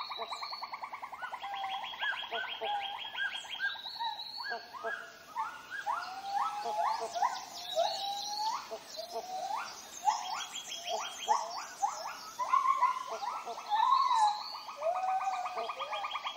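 Tropical rainforest wildlife chorus: rapid, even trills run throughout, layered with many short upward-sweeping chirps and calls that come thickest in the middle.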